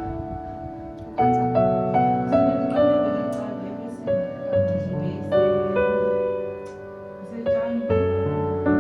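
Background piano music: notes and chords struck at a slow, gentle pace and left to ring.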